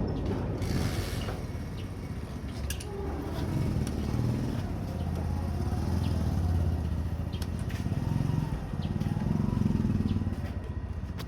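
A motor vehicle engine running, its low rumble swelling and fading a few times, with a few sharp metallic clicks scattered through.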